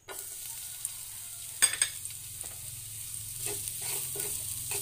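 Chopped garlic sizzling in hot oil in a granite-coated nonstick pan as a wooden spatula stirs it, tapping and scraping the pan. Two sharp knocks about a second and a half in are the loudest sounds, and lighter taps follow near the end.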